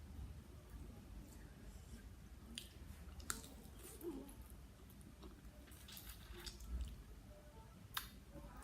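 Faint chewing and wet, squishy mouth sounds of someone eating raw blue swimming crab salad, with a few sharp clicks scattered through.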